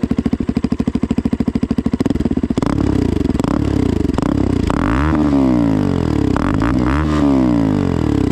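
KTM RC 200's single-cylinder engine through a newly fitted aftermarket Akrapovic dual exhaust. It idles with an even pulse, then from about two and a half seconds in is revved several times, its pitch climbing and falling back each time.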